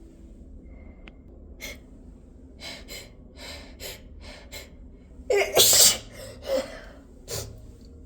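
A woman's hitching breaths, about seven short catches in a row, building to a loud sneeze a little past five seconds in, with two shorter bursts after it. The hitching breaths are the build-up of an induced sneeze.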